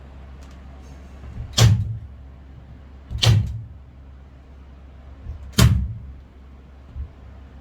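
Nail gun firing three times, about one and a half to two seconds apart, driving nails through cedar ceiling boards into the bus roof ribs.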